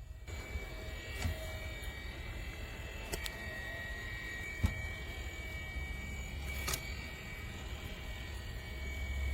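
Small electric motor running with a steady low hum and a thin, high whine over it, with a few light clicks and one sharper knock about halfway through.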